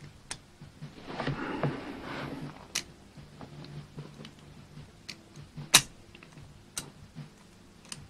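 Cast-metal pieces of a Hanayama Cast Padlock puzzle being handled: a scraping, shuffling stretch as parts slide against each other, and scattered sharp metallic clicks, the loudest about three-quarters of the way through.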